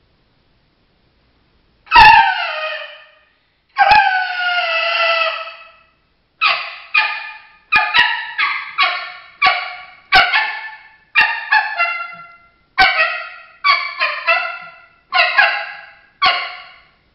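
Three-reed mouth diaphragm coyote call blown as an imitation of coyote vocalizations: two howls falling in pitch about two and four seconds in, the second one longer, followed by a long string of short barks and yips.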